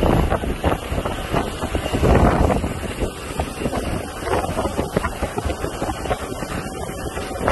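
Wind buffeting a phone microphone in gusts, over the running of police motorcycle and car engines.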